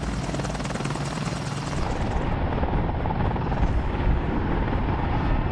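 AH-64 Apache attack helicopter flying, its rotor blades beating in a rapid steady pulse over the whine of its turboshaft engines.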